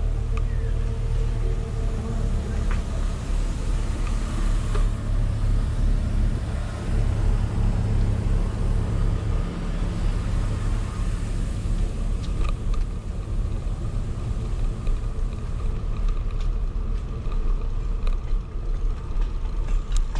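Engine running steadily with a low, even rumble.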